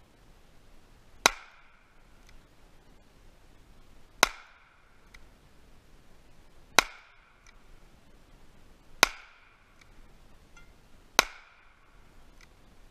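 Five single shots from a High Standard .22 rimfire handgun, each a sharp crack with a short ringing tail, fired slowly about two to three seconds apart.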